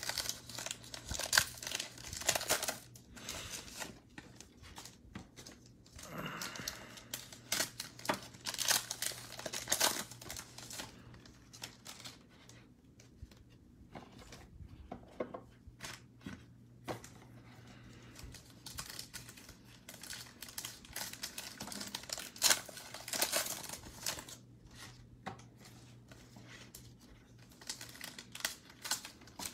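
Foil Panini Mosaic trading-card packs crinkling and tearing as they are ripped open and handled, in irregular bursts with quieter stretches between.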